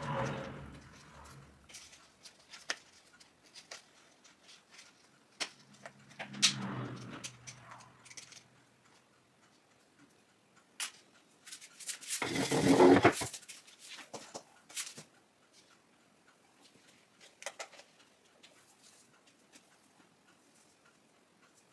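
Handling noise from a potted fishbone cactus and its hanging pot being worked with: rustling and light knocks, with a few louder rustling bursts, the loudest about halfway through.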